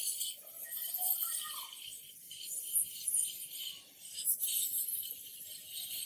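Hot air gun blowing a steady, high airy hiss while it melts insulating material onto a circuit track.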